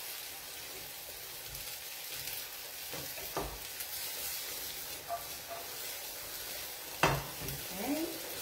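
Risotto sizzling in a frying pan as it is stirred, with a steady hiss. The stirring utensil knocks against the pan a few times, loudest about seven seconds in.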